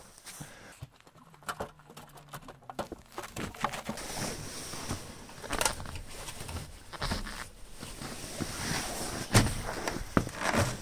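Footsteps in snow and handling noises as someone climbs into a truck cab: scattered knocks and scuffs, with a sharp knock near the end.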